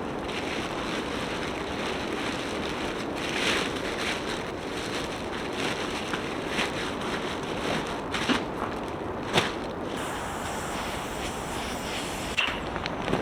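Steady rain falling, with scattered louder drops tapping now and then.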